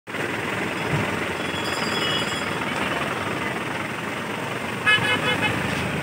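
Steady rush of a muddy river in flood churning past a bridge after heavy rain. A vehicle horn toots in a few short beeps about five seconds in.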